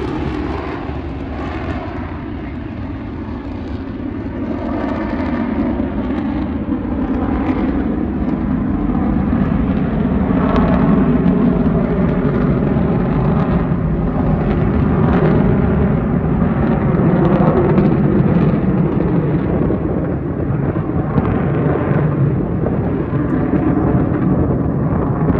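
Jet engine noise from a four-ship formation of F/A-18 Hornet jets flying overhead: a continuous rumbling roar that builds over the first several seconds and stays loud, its tone slowly sweeping as the jets pass.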